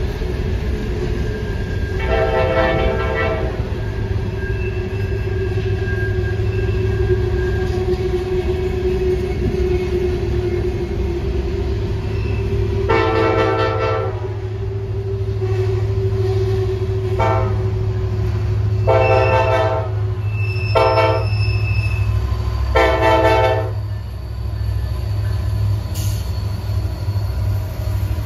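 Diesel locomotive horn sounding a series of blasts: one about 2 seconds in, a longer one about 13 seconds in, then four shorter blasts in quick succession near the end. Under the horn runs the steady low rumble of the locomotives' engines.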